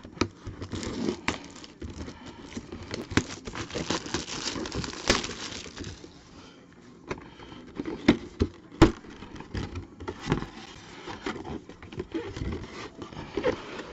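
Packaging being handled and opened: crinkling, rustling wrap with scattered sharp clicks and taps.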